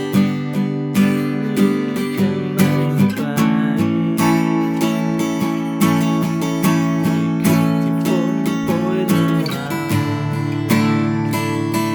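Acoustic guitar strumming chords in a steady rhythm, changing chord about three seconds in and again a couple of seconds before the end.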